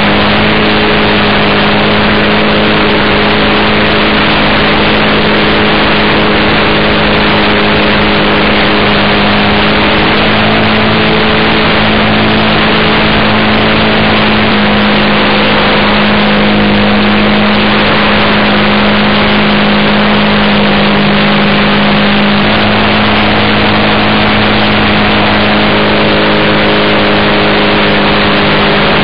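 A Piper J3 Cub RC model plane's motor and propeller running steadily in flight, picked up by a camera on the plane, over a loud, continuous rush of wind. The pitch shifts slightly a couple of times as the throttle changes.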